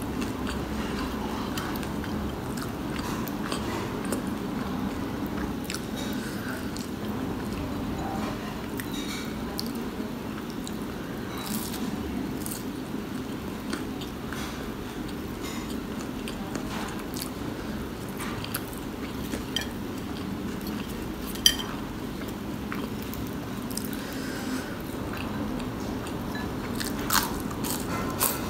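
Close-miked chewing of crispy fried onion pakoras, with wet mouth sounds and scattered short crunchy clicks. One sharp click comes about 21 seconds in, and a fresh bite crunches near the end, over a steady low background noise.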